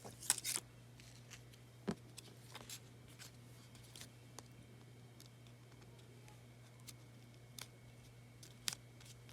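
Faint handling of paper craft pieces: a few sharp clicks and light rustles, over a steady low hum.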